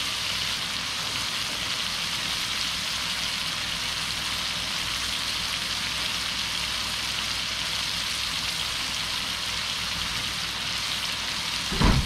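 Masala paste of onion, tomato and ground spices frying in a wok over a gas flame: a steady, even sizzle.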